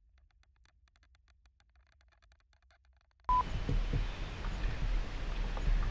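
Near silence for about three seconds, then a short, steady beep, followed by a low steady rumble with a few faint knocks.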